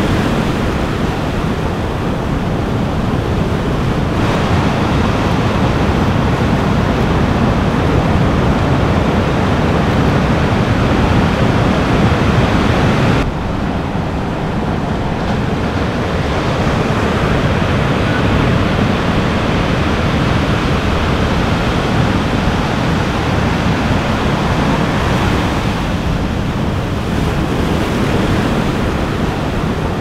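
Ocean surf: waves breaking and washing in as a continuous rush of noise, with wind buffeting the microphone. The sound drops a little and shifts abruptly about thirteen seconds in.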